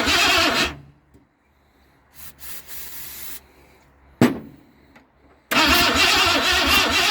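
Starter cranking the 351 Cleveland V8 of a 1973 Ford XA Falcon, an engine that has sat unrun for many years, turning over with an even pulse. The cranking stops about a second in, a single sharp click comes near the middle, and it cranks again from about five and a half seconds in.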